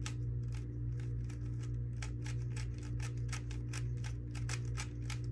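GAN 3x3 speed cube's plastic layers being turned quickly through a solving algorithm: a rapid, uneven run of sharp clicks, about five a second, over a steady low hum.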